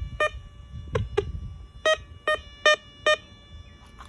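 Teknetics Mark 1 LTD Coin Computer metal detector giving short target beeps as its coil sweeps back and forth over a lead ball. There is one beep, then two fainter, lower ones about a second in, then four evenly spaced beeps near the end.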